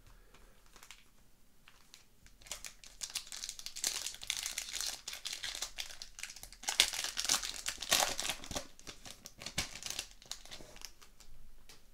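Foil wrapper of a Parkhurst Champions hockey card pack crinkled and torn open by hand, a dense crackle that starts about two seconds in, is loudest past the middle and dies down shortly before the end.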